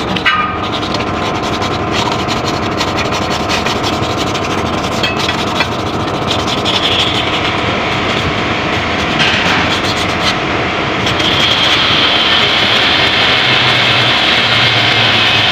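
Bristle brush scrubbing the front of a Toyota FJ's V6 engine block around the timing-cover face. It makes a continuous rough scrubbing that grows louder and steadier about eleven seconds in.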